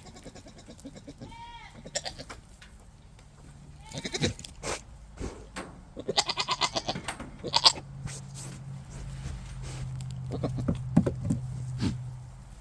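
Nubian goats bleating repeatedly, with short arching calls, then longer wavering bleats. A low steady hum runs under the second half.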